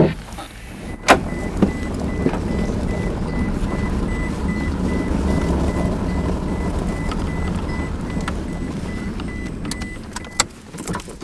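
Inside the cab of a Toyota pickup truck on the move: steady low engine and road rumble, with a sharp knock about a second in and a faint high pulsing tone over most of it. The rumble fades near the end as the truck slows to a stop.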